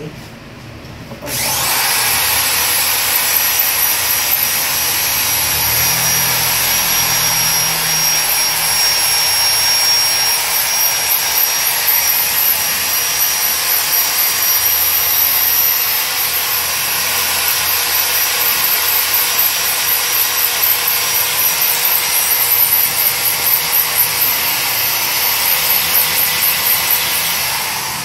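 A handheld power tool switches on about a second in and runs steadily: a loud hiss with a thin high whine over it, the level wavering a little near the end.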